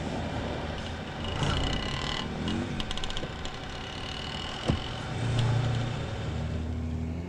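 City road traffic with a small hatchback car driving up and pulling in, its engine and tyres a steady low rumble. A single sharp knock comes about two-thirds of the way through.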